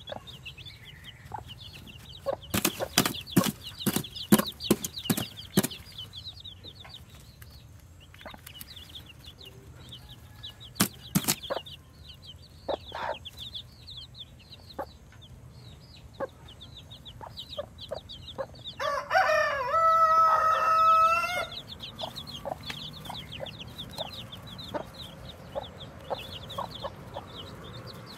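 Newly hatched chicks peeping constantly in high, rapid cheeps while the brooding hen gives short runs of clucks. About two-thirds of the way through, a rooster crows once for a couple of seconds, the loudest sound.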